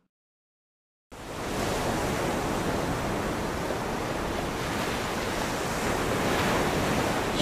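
A steady, even rushing noise that starts abruptly after about a second of dead silence.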